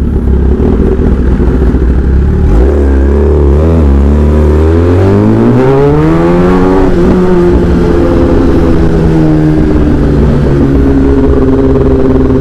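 Kawasaki ZX-10R's inline-four engine running at low revs, then pulling away with its pitch rising steadily for about five seconds before holding steady at cruising speed.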